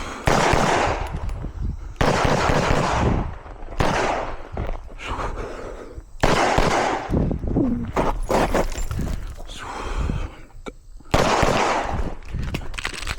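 Handgun fired in several rapid strings of shots, each string ringing with echo, with short gaps between strings.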